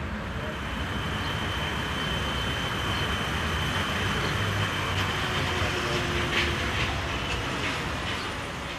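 Steady street-traffic noise that swells gently and eases off near the end, with a faint thin high whine held through the middle.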